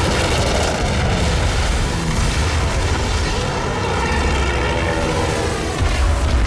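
Film battle soundtrack: propeller warplanes' engines droning overhead, their pitch sliding slowly up and down as they pass, over a deep continuous rumble. The rumble swells near the end.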